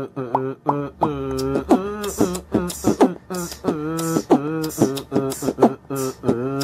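Theme music built on rhythmic, repeated vocal syllables. A low bass comes in about a second in, and a crisp beat of sharp high hits joins about two seconds in.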